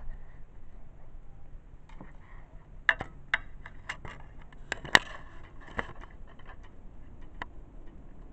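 Irregular sharp clicks and light taps of a handheld camera being handled and held against a window, the loudest about three and five seconds in.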